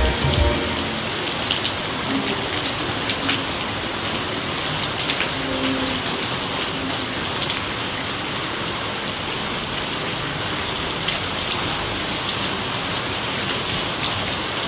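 Steady rain falling, with many close drops ticking sharply throughout.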